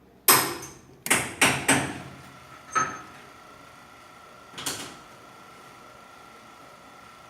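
A run of sharp knocks with a short ring after each: four close together in the first two seconds, then two more spaced out. A faint steady high hum comes in after the first few knocks.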